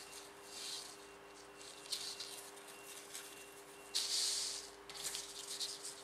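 Hands rubbing and stretching elastic polyamide-elastane microfibre briefs: soft fabric swishes and rustles in several short bursts, the longest and loudest about four seconds in as the waistband is pulled taut. A faint steady hum runs underneath.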